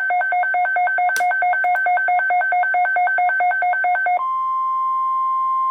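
Emergency alert tones: a fast two-tone beeping, about eight pulses a second, switches a little over four seconds in to a single steady tone, the long alert tone that comes before a NOAA Weather Radio voice message.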